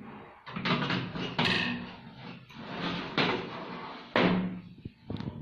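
An oven door and a metal baking tray clattering: several sudden knocks and bangs about a second apart, each ringing briefly, as the tray is put into the oven and the door is shut.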